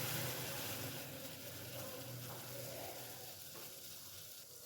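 Pot of kahwa spiced tea boiling on the stove, a steady bubbling hiss that dies down gradually as the flame is turned low.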